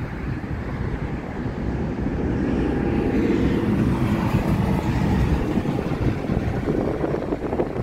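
Passing semi-trucks on a highway: diesel engine drone and tyre roar from a long-hood tractor-trailer, then a tractor pulling a livestock trailer, growing louder about three seconds in as they go by.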